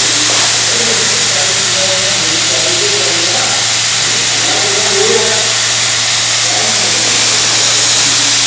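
Steady loud hiss of steam from water heating over a gas burner turned up high, with a low steady hum underneath.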